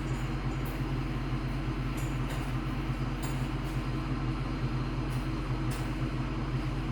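Steady low mechanical hum, even throughout, with a few faint brief swishes.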